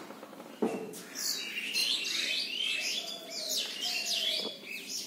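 Small birds chirping in a quick, busy run of high, downward-sweeping chirps, after a single knock just over half a second in.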